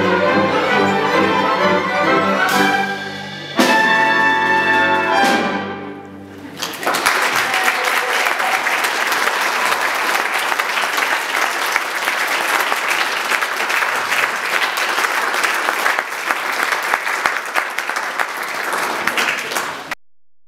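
A full orchestra of strings and brass plays its closing bars and ends on a loud final chord a few seconds in, which rings and dies away. Audience applause follows for about thirteen seconds and cuts off sharply near the end.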